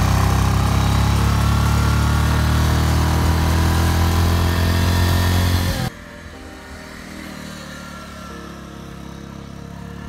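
Motorbike engine running steadily at riding speed, heard up close from the bike with a hiss of wind and road. About six seconds in it cuts suddenly to a much quieter, more distant motorbike engine.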